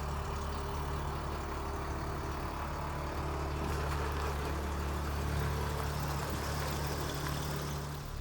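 BMW E30's engine idling steadily, just after the car has been put back together following a CV axle replacement, ready for a test drive.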